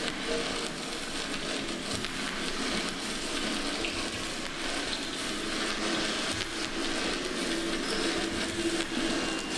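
Steady hiss of falling rain from a rain sound effect opening the dance's music track, with faint held low tones of music beneath it.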